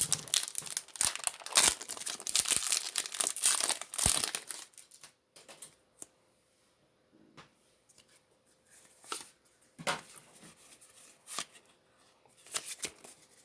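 A foil Pokémon booster pack torn open and crinkled for about four and a half seconds, then a few scattered soft clicks and rustles as the cards are handled.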